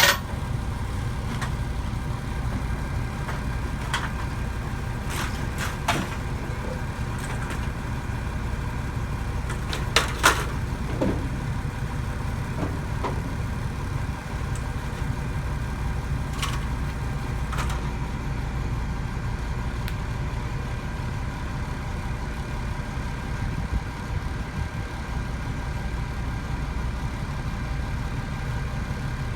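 An engine idling steadily, with a few sharp clanks and knocks scattered through it, the loudest pair about ten seconds in.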